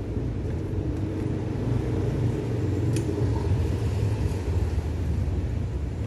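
Steady low rumble of motor-vehicle noise, with one faint tick about three seconds in.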